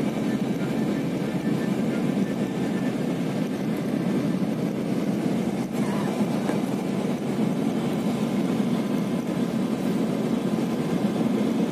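Steady cabin noise inside an intercity coach bus on the move: engine and tyre rumble, even throughout.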